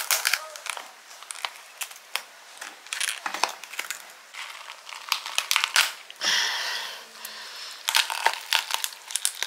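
Crackling and crunching of a large Australian red rock lobster's shell being broken and pulled apart by hand: a run of sharp cracks, with a longer rasp about six seconds in.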